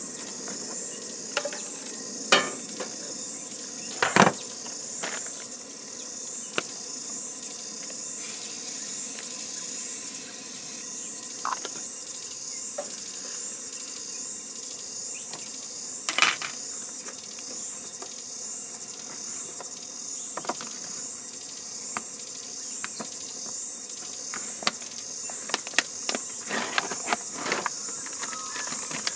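Insects chirping steadily in a high pulsing rhythm, about once a second, over clinks and knocks of pans and utensils on a portable gas camp stove, with a brief hiss about eight seconds in.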